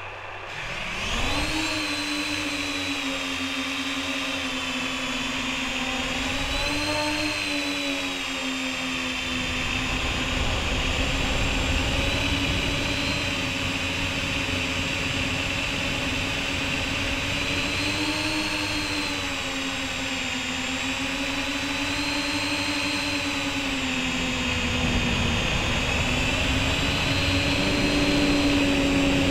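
MJX Bugs 3 quadcopter's 2S brushless motors and propellers whining, heard from a camera mounted under the drone. They spin up about a second in, then hold a steady buzzing whine whose pitch swells and dips with the throttle several times.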